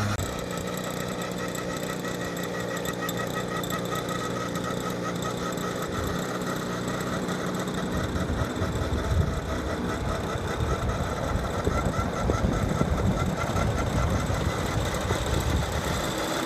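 Large scale RC helicopter powered by a Zenoah G26 two-stroke petrol engine, running steadily with its rotor turning. About eight seconds in, the low steady tone fades and a rougher, choppier low sound takes over.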